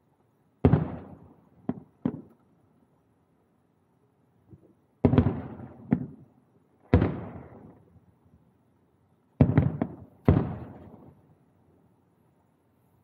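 Distant aerial firework shells bursting: about five loud booms, each trailing off in a rolling rumble over a second or two, with a few smaller, sharper cracks between them.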